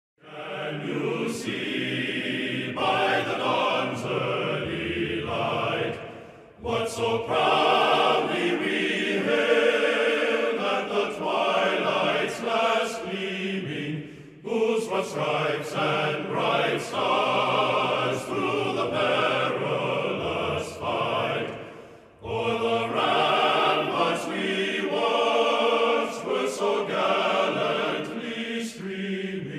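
A choir singing in long phrases, with three brief pauses between them.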